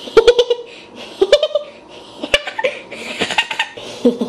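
A person giggling and laughing in a high-pitched voice, in several short runs, with one sharp click a little over two seconds in.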